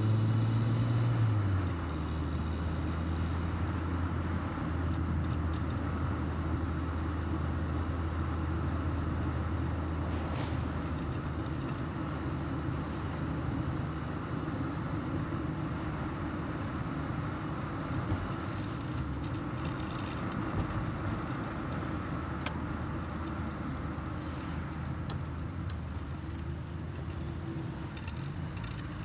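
1984 Volkswagen Golf Mk2 GL's carburetted four-cylinder engine running on the move, with road noise. The engine note steps down about a second and a half in, then holds steady and eases slightly toward the end.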